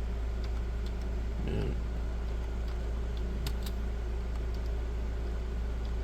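Steady low hum with a few light clicks of a computer keyboard, about three and a half seconds in.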